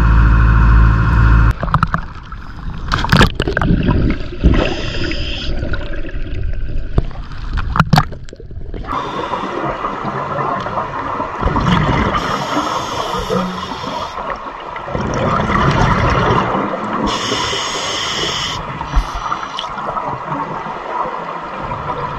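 Scuba diver's breathing underwater through a regulator, with repeated bursts of exhaust bubbles gurgling past. It is preceded, at the very start, by a brief loud rumble from the moving dive boat.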